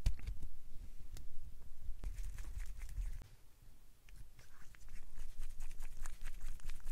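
Small screws being driven by hand with a hex driver to bolt a plastic battery tray onto the frame of an Axial SCX24 micro RC crawler: scattered light clicks and scrapes of the parts and tool being handled, with a short quieter spell about halfway.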